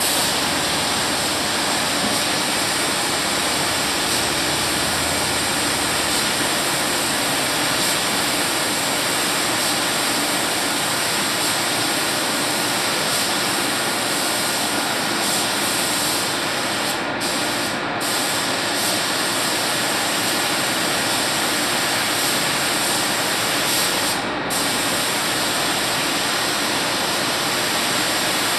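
Compressed-air paint spray gun hissing steadily as it sprays a car's body, with three short breaks between passes, two close together a little past halfway and one more later.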